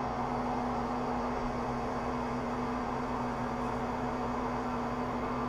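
Large metal lathe running steadily with a constant hum, its spindle at about 300 rpm, while a polycrystalline diamond (PCD) insert takes a light facing cut on an aluminium blank.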